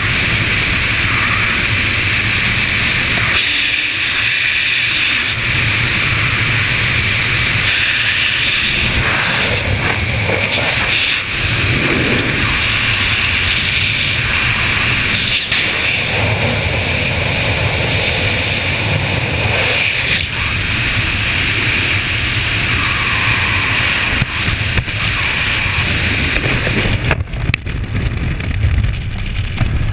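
Wind rushing over a helmet camera's microphone in skydiving freefall, a loud, steady roar. About 27 seconds in it loses its hiss and turns gusty and uneven as the parachute opens.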